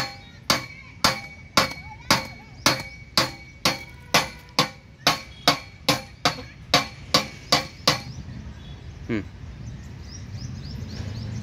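Outdoor gym exercise machine clanking: its steel frame knocks metal on metal with a short ring at the end of each stroke, about twice a second. The clanks stop about eight seconds in.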